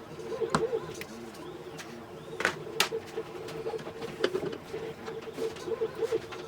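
Irregular sharp clicks and taps of hard parts and tools being handled, the loudest two close together in the middle, over a steady hum with a repeating low warble.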